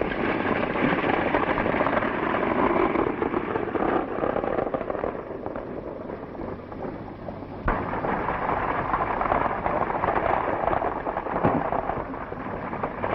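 Horses galloping and a stagecoach's wheels rumbling over a dirt road, a dense, steady clatter of hoofbeats and wheels. The sound changes abruptly about eight seconds in and grows louder.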